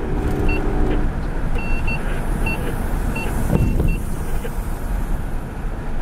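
Freight train of covered hopper cars rolling past at speed: a steady rumble of steel wheels on the rails, with a heavier clunk about three and a half seconds in.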